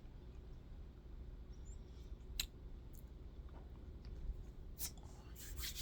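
Quiet mouth sounds of someone chewing a crunchy chocolate bar: a few faint clicks, with a short run of soft crunches near the end.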